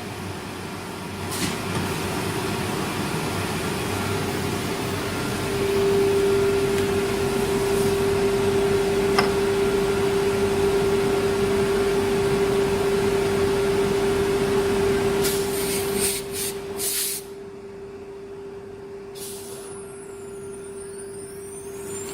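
CNC router spindle running with a steady high whine. A louder rushing noise, typical of the bit cutting wood, builds about six seconds in and drops away suddenly about seventeen seconds in, leaving the whine.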